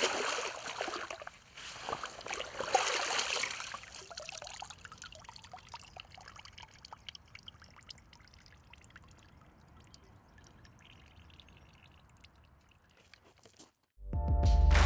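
Lake water splashing and sloshing around a camera held at the surface as a carp is released, loud in the first few seconds, then fading to faint lapping and trickling. Music starts near the end.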